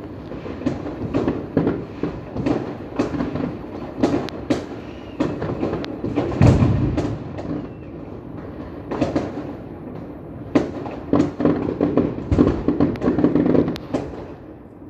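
Fireworks going off: many sharp bangs and crackles at irregular intervals, with one deep, heavy boom about six and a half seconds in.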